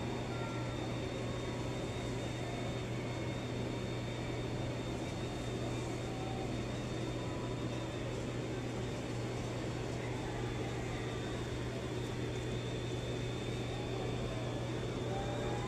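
Steady low mechanical hum of an office room, with faint, muffled street and crowd noise coming through a closed window.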